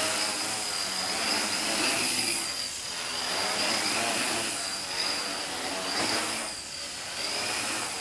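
Small homemade quadcopter's brushless motors and propellers hovering: a steady high whine over a buzzing rush, swelling and easing as the motors change speed to hold it level.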